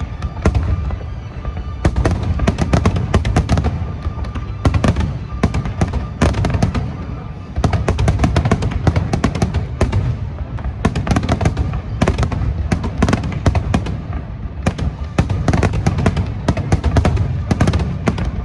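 Large fireworks display: rapid, near-continuous shell bursts and crackle with heavy low booms, easing briefly about halfway through before picking up again. Music plays underneath.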